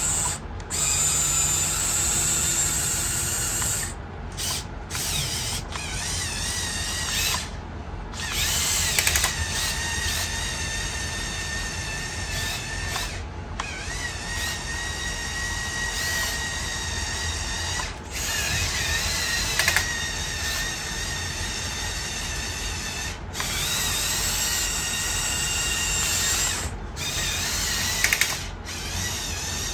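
Electric motors and plastic gear trains of a Mould King 17010 building-block mining dump truck running under remote control: a whirring whine that rises and falls in pitch with the throttle and cuts out briefly several times.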